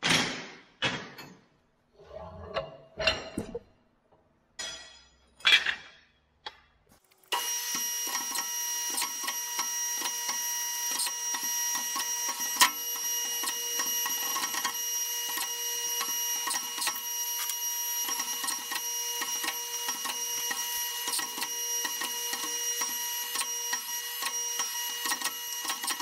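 A few separate metal clanks and knocks as a toothed steel bar is handled and clamped. About seven seconds in, a stationary metal-cutting saw starts and runs steadily through the bar, with a high whine and a constant fast ticking.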